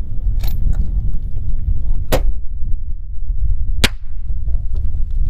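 A .308 Thompson/Center Compass rifle firing at long range: one sharp report about two seconds in and a second sharp crack under two seconds later. Under both runs a steady low rumble of wind on the microphone.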